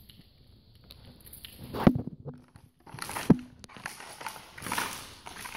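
Footsteps crunching over debris and broken floor tiles, with two sharp knocks underfoot about two and three seconds in, then a run of irregular crunching and scraping.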